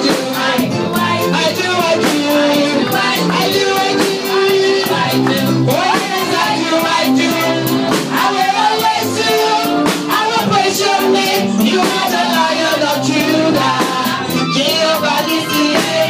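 Church praise and worship music: a band with a steady drum beat, bass and guitar, with singing over it.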